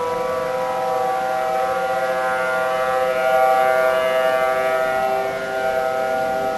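Outdoor warning sirens (civil defense sirens), several at once, holding a steady alert tone for a severe thunderstorm warning issued under a tornado watch. Their overlapping pitches swell briefly a little past the middle.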